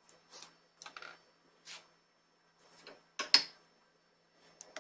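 Brief hand-handling noises of short scrapes and rustles, with a sharp knock about three seconds in as a small wooden block is set down on the drill-press CNC's aluminium rail.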